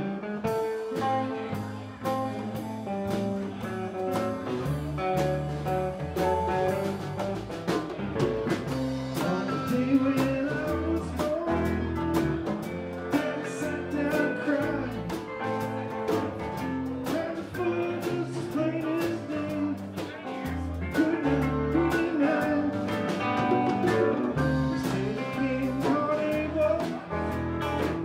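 Live band playing a song: guitar over a bass line, with drums keeping a steady beat.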